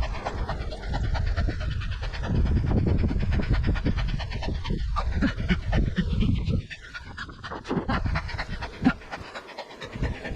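A cyclist breathing hard, panting mid-ride, under a steady low rumble that drops away about two-thirds of the way in.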